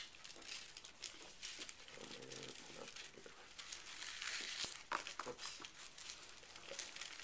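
Sheets of paper rustling and crinkling as they are folded and creased flat by hand on a tabletop, in short, irregular crackles.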